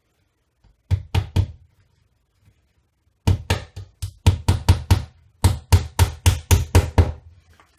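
Hammer driving small nails into a thin wooden strip fixed inside a wooden cabinet as a replacement drawer runner. Three blows about a second in, then a quick run of about four to five blows a second for nearly four seconds.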